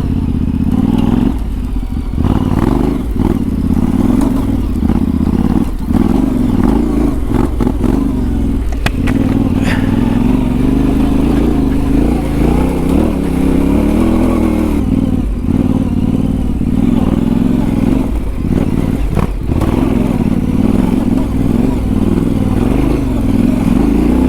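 Yamaha Ténéré 700's parallel-twin engine running under way, its note rising and falling with the throttle.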